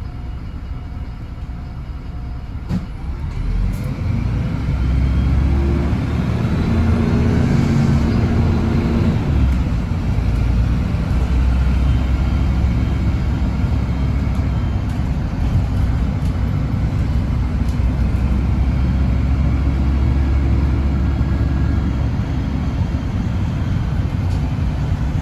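MAN 18.240 bus diesel engine ticking over, then building up about three seconds in and running hard under load, with a faint rising whine near eight seconds.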